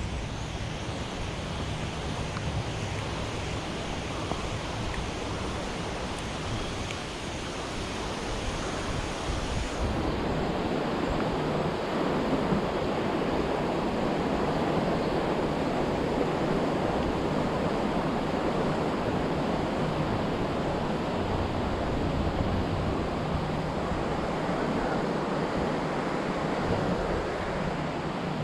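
Swollen river rushing after a flash flood: a steady roar of water that gets louder about ten seconds in.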